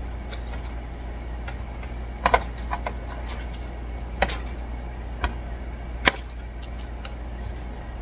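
Scattered sharp clicks and knocks of a utensil against a metal baking pan as racks of baked ribs are turned over, a few in quick succession then single ones, over a steady low hum.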